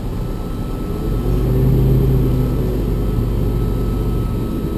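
Freightliner M2 diesel engine heard from inside the cab as the truck manoeuvres. Its note swells about a second in, peaks, then eases back to a steady run.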